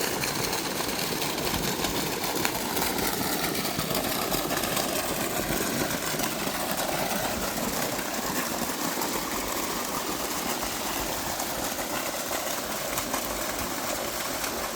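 Water running steadily into a pileta basin, a continuous rushing splash with no pauses.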